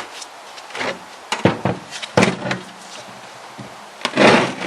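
Several clunks and knocks as a bare, fully stripped cast-iron cylinder head is moved about on a workbench, then a louder scraping rush near the end.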